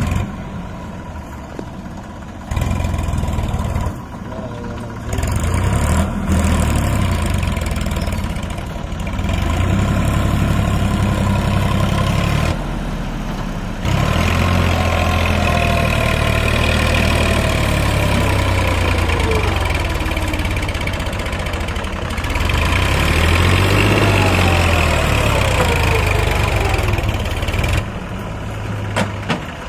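Massey Ferguson 9000 tractor's diesel engine working under load, hauling a fully loaded trolley through soft dirt. The engine note rises and falls, and the loudness drops and jumps back abruptly several times.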